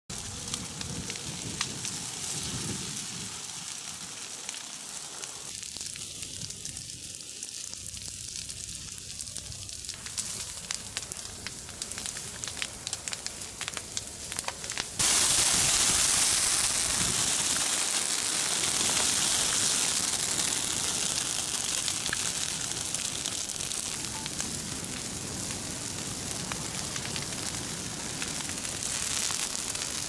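Forest fire burning through trees and brush: burning vegetation crackling and popping with many sharp cracks. About halfway through, a sudden, louder, steady hiss takes over.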